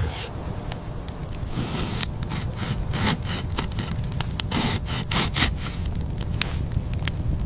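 A knife blade scraping and shaving along wood in repeated strokes, over a low rumble dotted with sharp clicks.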